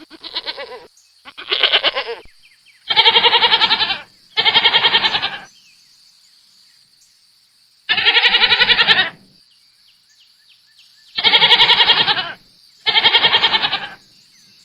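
Goat bleating: seven quavering bleats of about a second each, mostly in close pairs with pauses between.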